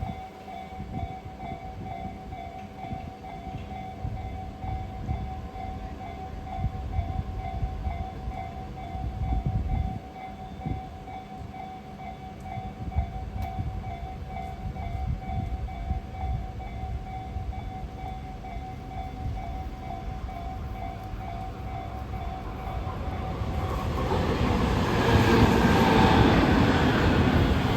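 Japanese level-crossing warning bell ringing in a quick, even repeat. About 24 seconds in, a Tobu Tojo Line electric train passes over the crossing, its rumble growing loud and covering the bell.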